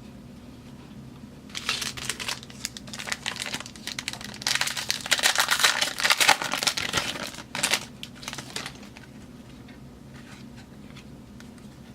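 Foil wrapper of a football card pack crinkling and tearing as it is opened, in a run of crackly bursts that starts about a second and a half in, is loudest in the middle and dies away a few seconds before the end.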